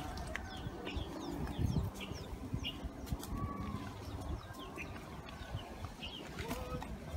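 Small birds chirping: short high calls, each dropping in pitch, repeating every second or so over a low rumbling background.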